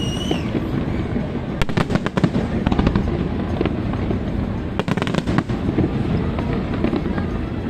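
Fireworks display: a continuous rumble of overlapping booms, with bursts of sharp crackling about two seconds in and again about five seconds in. A short high whistle at the very start.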